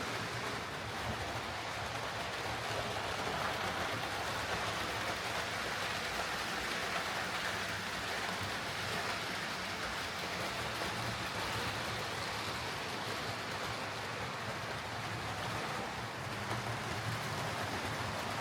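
Hornby Railroad Class 9F OO gauge model steam locomotive running on track: a steady whir of its motor and gears with a hissy rolling noise from the wheels on the rails, under a low hum.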